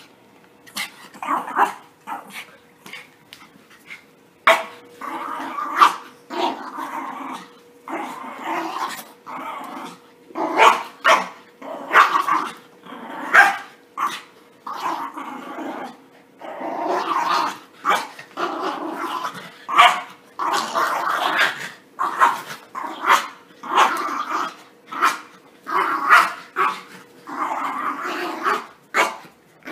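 Yorkshire terrier puppies growling and barking in rough play as they wrestle and tug at toys. There are sharp barks and yips about once a second over running growls, a few at first and then busy from about four seconds in.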